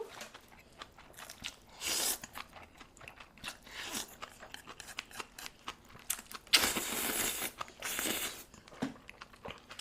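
A person eating close to the microphone: chewing and crunching with many small wet clicks and several louder bursts, the loudest about six and a half seconds in.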